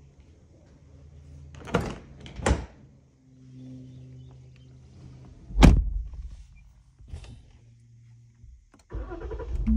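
A car door is opened with two sharp latch clicks, then about halfway through it shuts with a heavy thunk, the loudest sound here. A small click follows, and near the end the engine starts from the push-button start.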